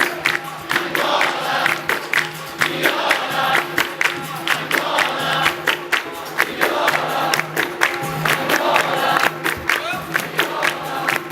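Capoeira roda music: a group singing together over percussion and hand claps, with frequent sharp strikes and a steady low held tone underneath.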